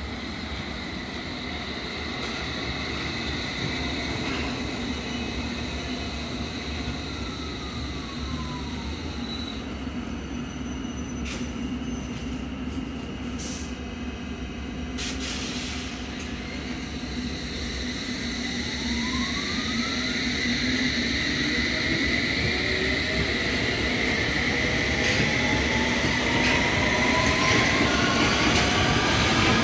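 London Underground S stock train, its motors whining down in pitch as it slows, over a steady rumble and a high steady squeal from the wheels. A few sharp clicks come in the middle. Then the whine rises again in several climbing tones and grows louder as the train pulls away.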